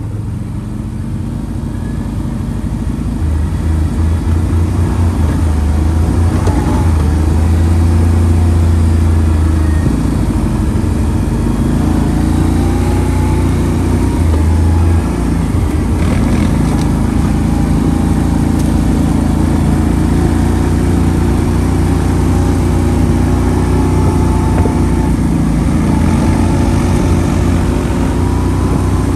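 ATV engine running steadily while riding, its pitch stepping up and down a few times with the throttle, over a constant rush of wind and tyre noise.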